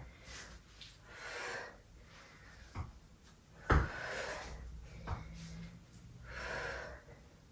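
A woman's audible breathing during a lunge-and-balance exercise, with two long exhales, and a few dull thuds of trainers landing on a floor mat, the loudest just under four seconds in as she steps back into a lunge.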